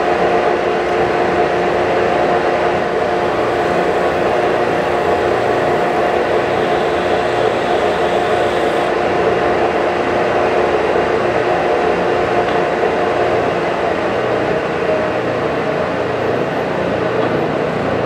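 A shop vacuum used as dust collection running steadily, with a Ridgid EB4424 oscillating edge belt/spindle sander running alongside: a loud, even whir with a faint steady hum in it.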